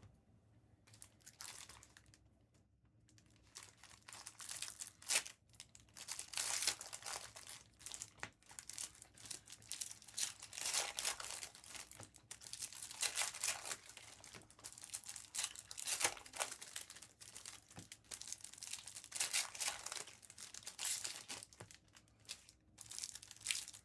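Plastic trading-card pack wrappers being torn open and crinkled by hand, a run of irregular crackles and rips that starts faintly and keeps going from about three seconds in.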